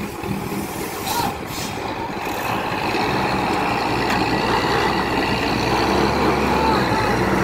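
Heavy diesel truck engine working under load as the wrecker pulls the stuck truck out by cable, building up about three seconds in and then holding steady. A couple of short hisses about a second in.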